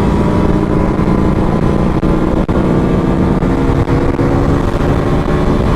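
Motorcycle engine running at a steady cruising speed, with heavy wind rumble on the microphone.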